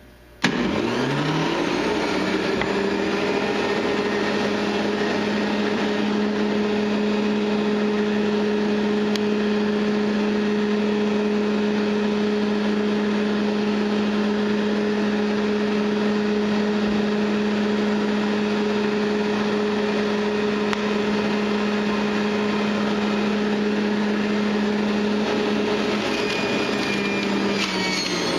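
Electric juicer switching on, its motor spinning up over about two seconds, then running with a steady loud hum as fruit and vegetables are fed through it. The pitch shifts slightly near the end.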